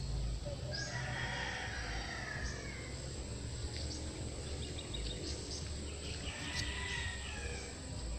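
A rooster crowing twice, about a second in and again about five and a half seconds in, over a steady high-pitched hum.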